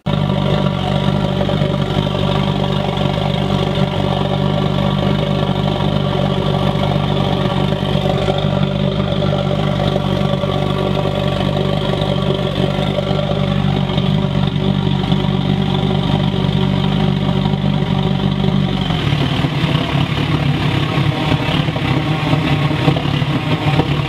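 Waste-oil burner with an electric blower, burning waste vegetable oil and cranked up high, running with a steady loud roar and hum. Near the end the deep part of the hum drops away.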